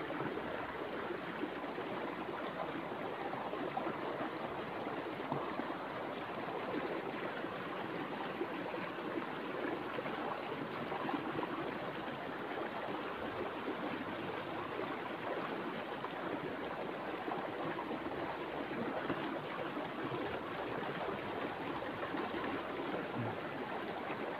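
Steady, even rushing noise, like running water, with nothing standing out from it.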